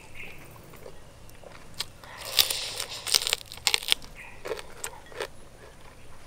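Crunching as crispy fried fish is bitten and chewed: a few scattered sharp cracks, a dense run of crunching from about two to four seconds in, then more scattered crunches.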